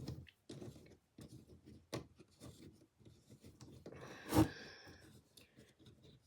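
Handling noises from assembling a cheap wooden display easel: light clicks and rubbing of wood and small metal hardware, with one louder knock about four seconds in.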